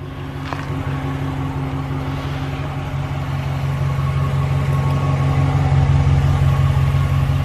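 Dodge Ram 1500's 5.7-litre Hemi V8 idling steadily, getting gradually louder.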